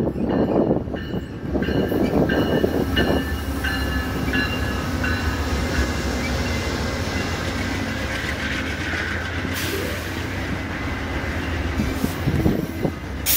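Amtrak Southwest Chief passenger train rolling into the station: the diesel locomotive passes with its bell ringing about twice a second, the pitch dropping slightly as it goes by. The bilevel passenger cars follow with a steady rumble of wheels on rail and a faint high squeal partway through as the train slows to stop.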